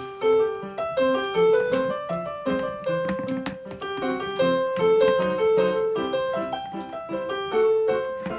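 Background piano music: a tune of many short, quickly fading notes over steady chords.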